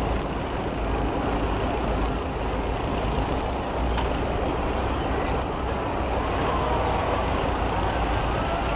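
Engines of several heavy vehicles running together, a steady, dense rumble that neither builds nor breaks off.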